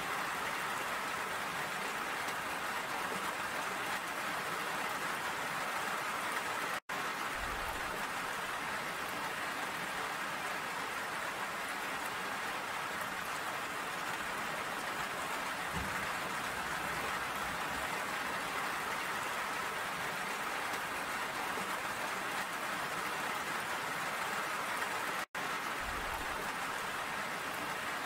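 Steady rain falling, an even hiss of drops. The sound cuts out to silence for an instant twice, once near a quarter of the way through and once near the end.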